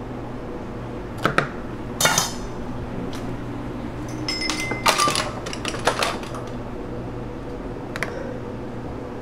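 Kitchen utensils and dishes knocking and clinking over a steady low hum of kitchen equipment. There are a couple of sharp clacks about a second in, another about two seconds in, and a cluster of ringing clinks between about four and six and a half seconds. One more click comes near the end.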